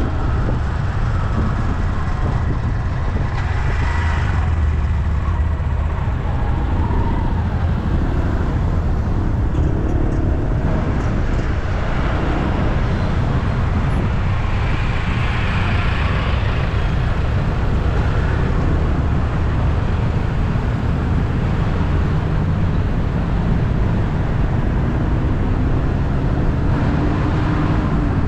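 Road traffic: a steady rumble of passing vehicles, with one engine's pitch rising near the end.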